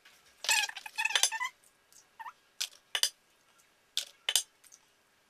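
Eggs being cracked against the rim of a Thermomix mixing bowl: a short squeaky sound about half a second in, then several sharp separate taps.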